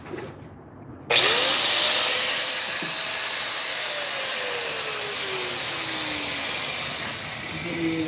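A small electric motor starts abruptly about a second in with a loud rushing hiss; its whine climbs quickly, then slowly sinks in pitch over the next five seconds as it keeps running.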